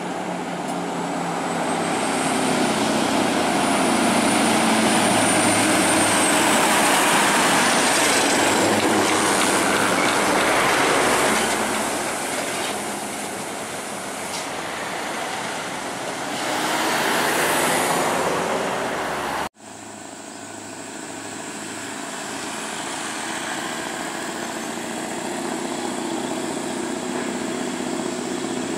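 Scania R580 truck's V8 diesel pulling a lowboy trailer loaded with an excavator, engine and tyre noise swelling loud as the rig passes close, with a faint high whine over the first few seconds. An abrupt cut about two-thirds of the way through, then the truck's engine running steadily again, somewhat quieter.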